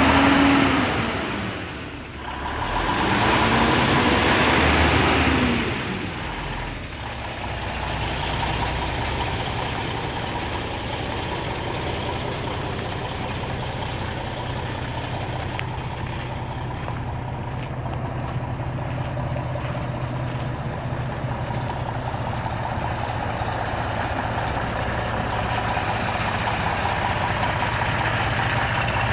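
Diesel engine of a Freightliner Coronado truck tractor revved up and back down twice, then settling into a steady idle.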